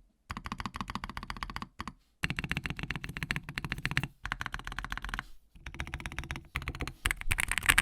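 Fast typing on a Tiger 80 Lite mechanical keyboard with lubed Boba U4T tactile switches (68 g) and case foam. Quick runs of keystrokes come in several bursts with brief pauses between them, getting louder and denser near the end.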